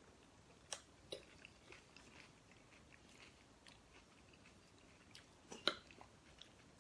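Quiet eating of a salad: faint chewing and the light clicks of forks against plates, a few separate clicks about a second in and a sharper cluster a little before the end.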